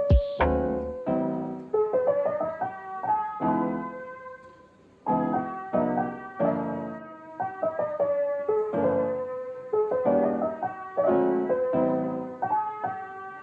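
Background piano music: a gentle piece of chords and a melody, with a short dip about four seconds in.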